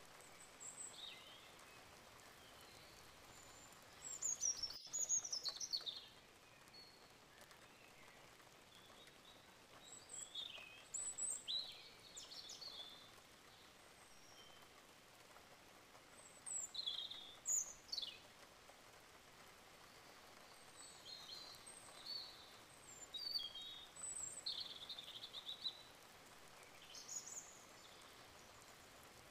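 Small birds chirping, short high calls coming in spells every few seconds, over a faint steady hiss.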